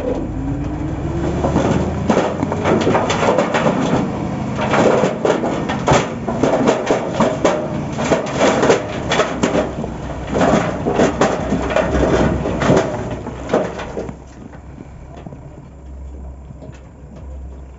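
Heavy earthmoving machine at work: its diesel engine revs up with a rising tone, then runs under load with many clanks and knocks for about fourteen seconds before dropping to a lower, steadier running sound.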